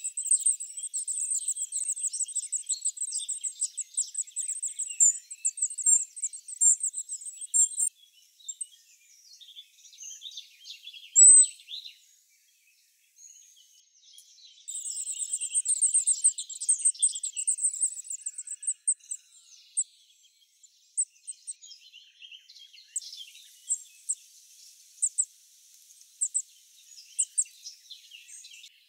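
Goldcrests at the nest: very high-pitched, rapid chirping in long runs, the nestlings begging while being fed. A single louder chirp comes in the middle, and a few separate thin calls near the end.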